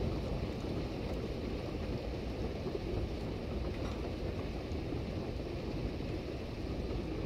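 Steady rain falling on a wet street and lawn during a storm, a constant even hiss, with wind rumbling on the microphone.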